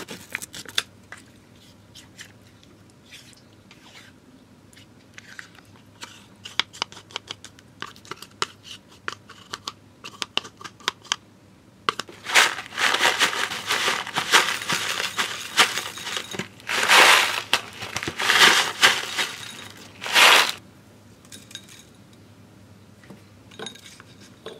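Foil lid peeled off a yogurt cup, then light spoon taps and scrapes against a glass. About halfway through comes a stretch of loud crinkling from a plastic granola pouch as granola is shaken out, in several surges that stop sharply.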